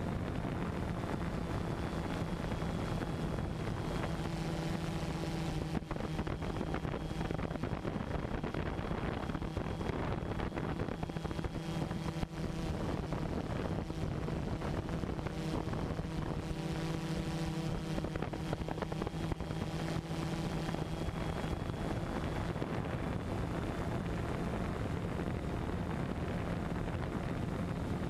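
Multirotor drone's motors and propellers whirring steadily, heard through its onboard camera, with wind noise on the microphone.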